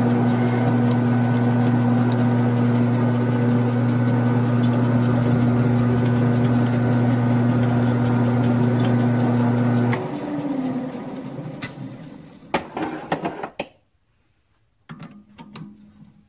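Grizzly G9972Z bench lathe running with a steady hum, switched off about ten seconds in and winding down with a short falling whine. A few sharp clicks and knocks follow, then more clicks near the end as the chuck is handled.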